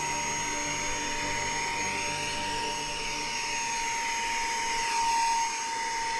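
Small handheld vacuum running with a steady high whine and a rush of air, sucking small hive beetles off a beehive frame.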